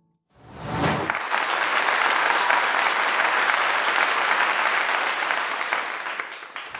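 Crowd applause that sets in abruptly about a third of a second in, opening with a low thud, then holds steady and eases slightly near the end.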